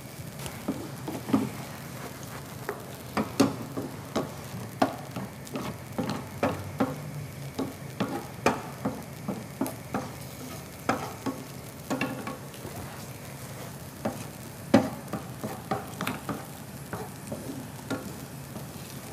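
Wooden spatula stirring cashews in a frying pan: irregular knocks and scrapes of the spatula against the pan, over a faint sizzle. One knock about three-quarters of the way in is louder than the rest.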